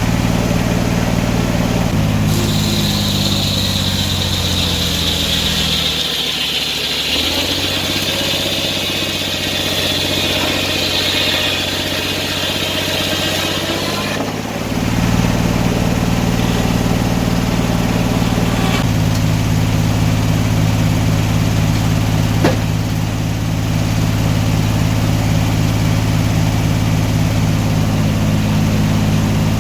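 Sawmill engine running, its speed shifting several times: it steps up about 2 seconds in, dips briefly, then steps up again near the halfway point. A high thin whine sounds alongside it for roughly the first half.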